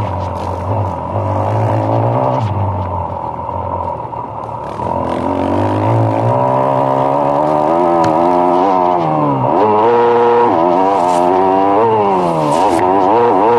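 Motocross bike engine revving hard and backing off over and over as it is ridden around the dirt track, its pitch climbing and falling repeatedly.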